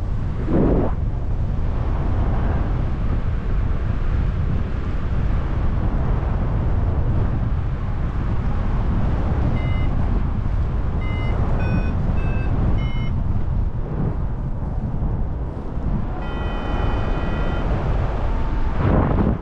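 Airflow rushing over the camera microphone of a paraglider in flight, with a couple of gusts. About halfway through a variometer gives five short beeps that jump between pitches, and later a longer steady tone.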